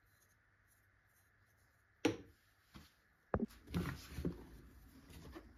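Faint room hum, then three sharp knocks starting about two seconds in, followed by irregular clattering of small hard objects being handled and set down.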